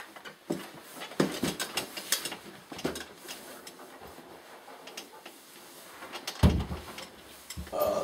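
Handling noises: scattered clicks and cloth rustling as a person fiddles with swim goggles and shifts about, then a dull thump about six and a half seconds in as he slumps onto a cloth-covered table.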